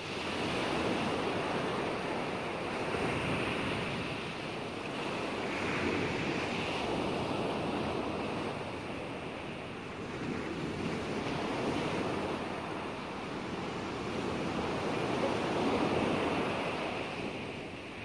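Ocean water noise: a steady rush that swells and eases every few seconds.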